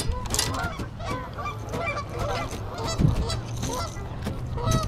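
A flock of geese honking, many short calls overlapping, with a single thump about three seconds in.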